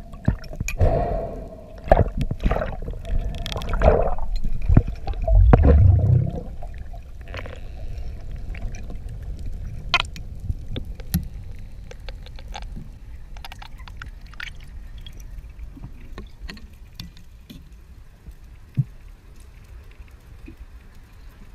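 Underwater water noise: for about the first six seconds loud gurgling and rushing with sharp clicks of handling, then a quieter steady hiss with scattered ticks.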